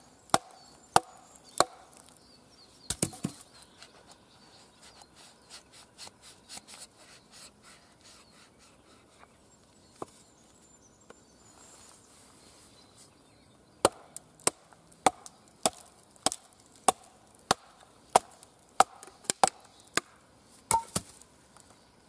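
Wooden baton knocking on the spine of a Cold Steel Recon Scout knife, driving the blade down through an upright log to split it. There are sharp wooden knocks in the first few seconds, faint ticks through the middle, then a steady run of knocks about every half second from about two-thirds of the way in.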